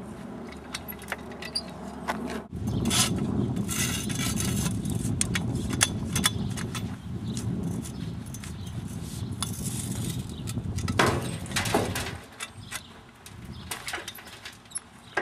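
Steel shovel, braced on a metal leverage bar, scraping into a pile of loose soil and tipping loads into a wheelbarrow, with scattered light metallic clinks. A steady low rumble sits underneath through the middle and stops about twelve seconds in.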